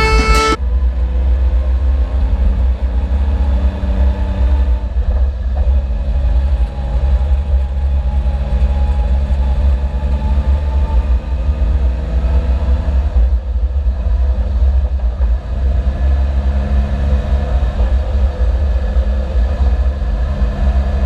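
Suzuki Jimny driving under a heavy low rumble, its engine note shifting in pitch a few times as it changes speed. The owner says the engine has begun misfiring through the exhaust because it is already distorted.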